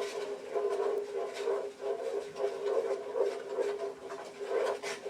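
Utensil stirring and scraping in a skillet of melted butter, garlic and lemon juice, in short irregular strokes over a steady hum.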